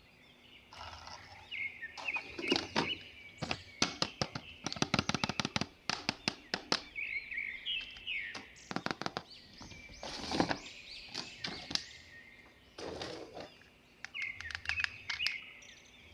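Hard plastic toy parts being handled: a string of sharp clicks and snaps mixed with short, high chirping squeaks.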